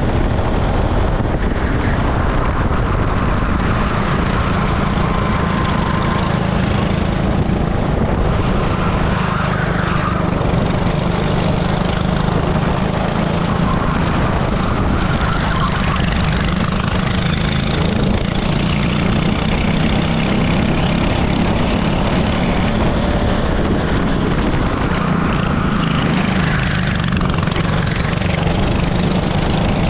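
An 18 hp super kart's engine running hard at racing speed, heard onboard, its pitch rising and falling a little as the kart brakes and accelerates.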